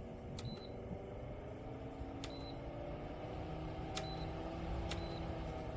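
A mini evaporative air cooler's small fan motor running with a steady hum that slowly shifts in pitch, while its control buttons are pressed four times, each press a click followed by a short high beep.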